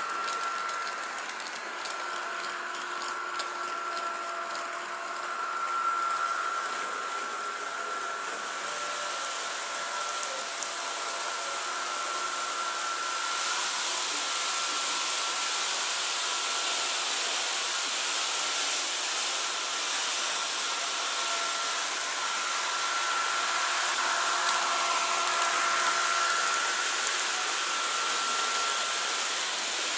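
HO-scale model trains running on a layout: the steady high whine of the locomotives' electric motors over the hiss and rattle of wheels on the track. The hiss grows fuller about halfway through as more trains run.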